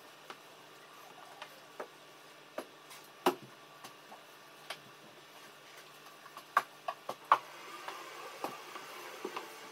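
Light knocks and clicks at irregular times as a long-handled floor mop is pushed and bumped over a hard floor, over a faint steady hum.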